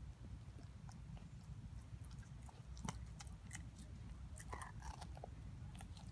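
Siberian husky chewing and biting at a raw steak bone: faint, irregular clicks and crunches, the sharpest about three seconds in and a cluster of them about a second later.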